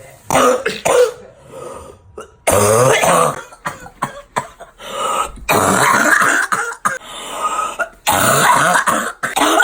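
A person coughing loudly in four long fits, each about a second, coming roughly every two to three seconds.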